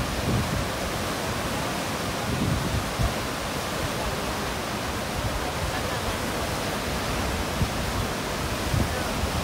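Steady rushing of whitewater from a standing river wave, with a few brief low thumps.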